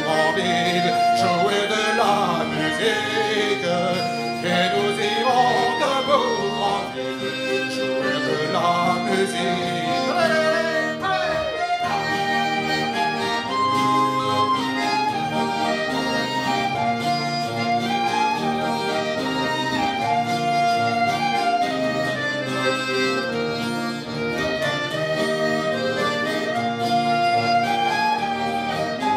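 Live folk band playing an instrumental Breton dance tune on acoustic guitar, accordion and clarinets.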